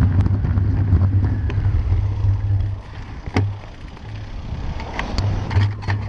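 Car running close by, a steady low rumble with wind on the microphone. The rumble drops away about three seconds in, then a few sharp clicks and knocks.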